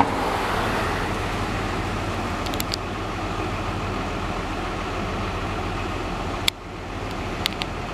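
Street traffic with a steady low engine hum from an idling motor vehicle. A few light clicks, and one sharp click about six and a half seconds in, after which the sound briefly drops quieter.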